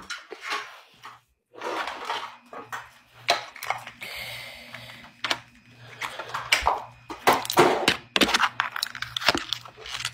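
An irregular string of knocks, clacks and rustling from things being handled close to a phone's microphone.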